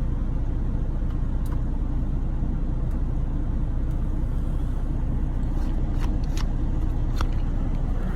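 Steady low drone of an idling truck engine, with a few faint clicks.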